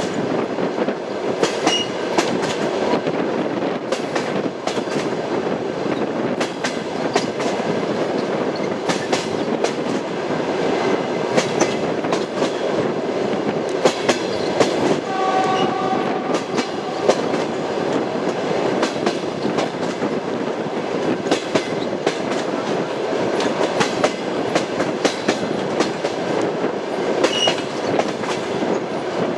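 Railway wheels clattering over the rail joints, with a steady running rumble and frequent sharp clicks. A brief tone sounds about halfway through.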